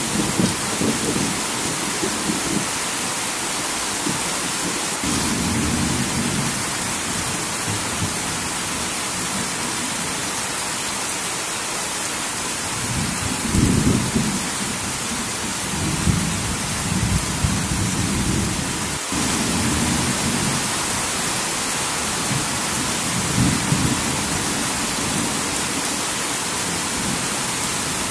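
Heavy rain falling steadily, a dense even hiss. Low rumbles rise under it every few seconds.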